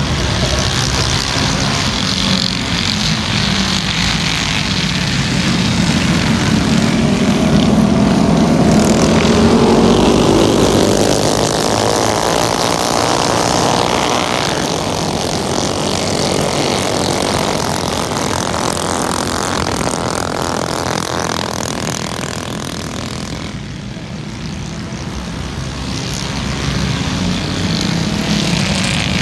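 A pack of mini bikes racing on a dirt flat track, their small engines droning at high revs. The sound swells with sliding pitch as the pack passes close about a third of the way through, dips briefly near the end, then rises again as they come round.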